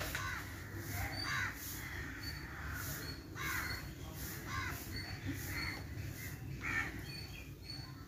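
Crows cawing repeatedly, a short harsh call about once a second, over a steady low rumble.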